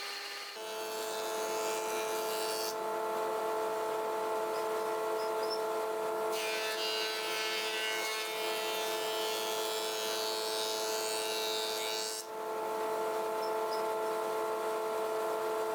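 Table saw running with a steady motor whine. Spells of cutting hiss come and go over it as wood is fed through the blade, with a brief dip near the end.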